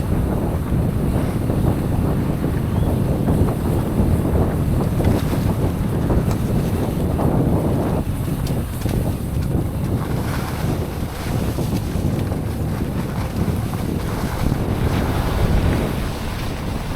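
Wind buffeting the microphone of a mountain bike rider's camera during a fast ride, a steady heavy rumble with a constant fine rattle from the bike running over the trail.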